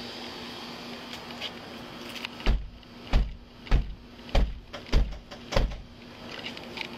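Loud pounding knocks on a house's front door: six evenly spaced blows a little over half a second apart, starting about two and a half seconds in.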